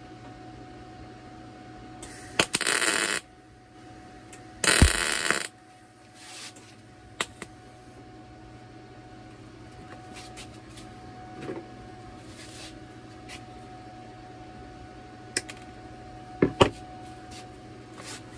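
Two short spot welds on thin steel band from a Harbor Freight welder, each about a second of crackling arc, a couple of seconds apart. Afterwards come a few light metal clicks and taps as the work is handled.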